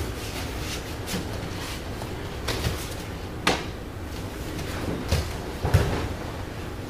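Bodies and bare feet striking a padded martial-arts mat as aikido techniques are practised: a few scattered thumps and one sharp slap-like crack, with the loudest, heaviest thump near the end as the partner is taken down onto the mat.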